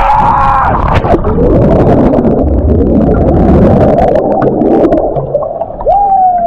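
A shout, then loud rushing and splashing water from a jump into a waterfall pool, turning muffled near the end, with a brief wavering cry just before the end.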